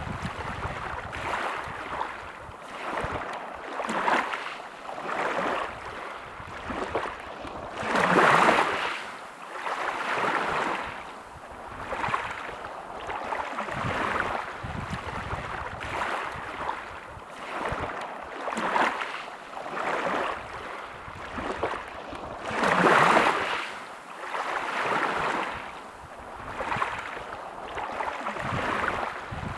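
Sea waves washing onto a shore, the surf swelling and falling back every second or two, with two bigger waves breaking about eight seconds in and again near twenty-three seconds.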